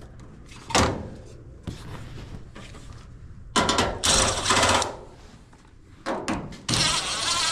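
A power driver running in short bursts of about a second each, backing out sheet-metal screws from a washer cabinet, with a knock about a second in.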